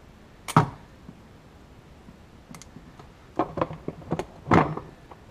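Plastic push-pin fasteners and a plastic body panel being handled and pressed into place: one sharp click about half a second in, then a quick run of clicks and small plastic knocks from about three and a half seconds on, the loudest near the end.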